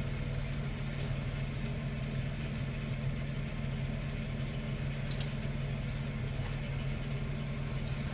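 A steady low hum, with a few faint clicks from electrical tape and wiring being handled.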